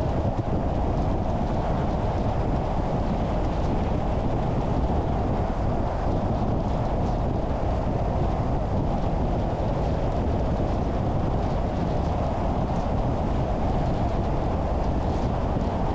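Car driving at a steady speed: an even, unbroken hum of tyres on the road and engine noise.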